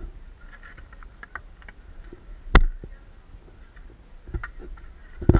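Scattered ticks and knocks of a hiker moving over rock and dirt on a steep trail. There is a sharp, loud knock about two and a half seconds in, and another cluster of knocks near the end.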